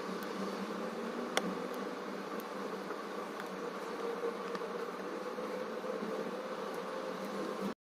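A steady buzzing hum, with a few faint clicks and one sharper click about a second and a half in, typical of a diamond-painting pen setting resin drills onto the canvas. The sound cuts off abruptly near the end.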